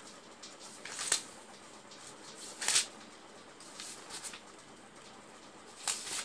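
Pages of a Bible being turned by hand: several short papery rustles, the loudest about a second in and near three seconds in.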